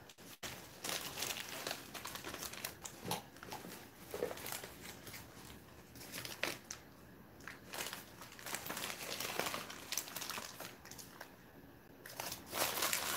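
Paper bags rustling and crinkling in irregular bursts as they are handled and searched through.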